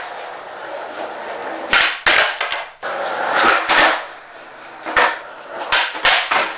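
Skateboards being popped and landing on a concrete floor during flip-trick attempts: a series of sharp wooden cracks and clatters, a pair about two seconds in and a quick cluster near the end, with rolling wheel noise in between.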